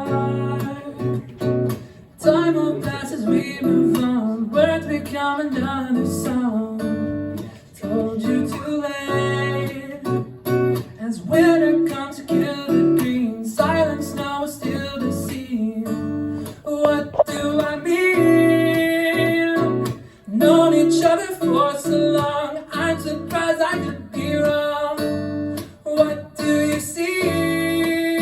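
Acoustic guitar playing a song, ringing chords with frequent note changes.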